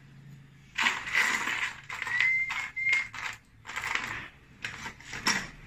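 Scraping and clinking as metal door-frame pieces are handled and fitted into the doorway, in short irregular bursts, with a brief high squeak about two seconds in.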